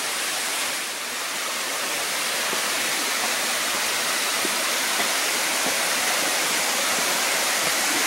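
Waterfall rushing steadily: an even wash of falling water that grows slightly louder over the first few seconds.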